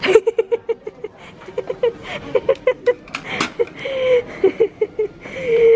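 A toddler babbling in short, high-pitched syllables in quick succession, with a few sharp clicks, the loudest about three and a half seconds in.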